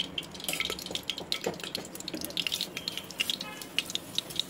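Desi ghee heating in a pressure cooker, sizzling with irregular small crackles and pops; whole cloves, cardamom and fennel seeds are dropped into the hot ghee near the end.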